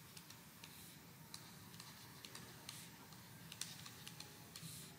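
Near silence with faint, irregular light clicks and taps and a few soft swishes: a stylus writing on a pen tablet.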